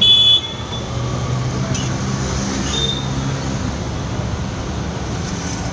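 A metal spatula strikes the iron dosa griddle with a short clank and brief ring at the start, then a steady low background hum with a few faint clinks.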